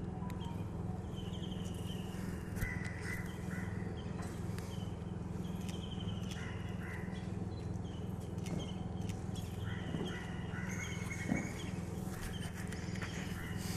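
Birds calling again and again in short falling notes over a steady low hum, with a few faint knocks from the boots of a marching flag party.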